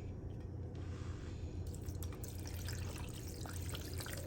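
About 16 ounces of water being poured into a blender jar holding ice and citrus, a steady splashing trickle that starts about a second in, over a low steady hum.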